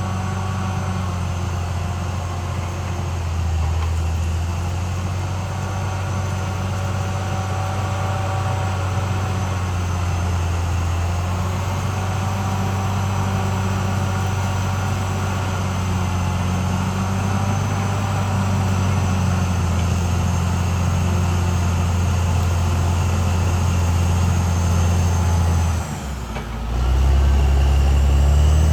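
Diesel engine of a CAT D6R XL crawler bulldozer running steadily at work, with a faint high whine over the engine hum. Near the end the sound drops briefly, then returns louder and deeper.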